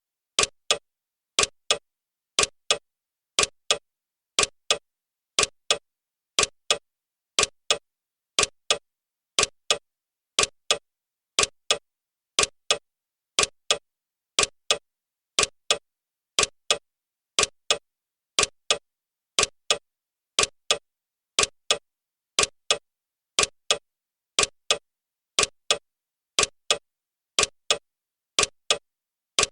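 Clock ticking sound of a countdown timer: sharp, evenly spaced ticks in a steady rhythm.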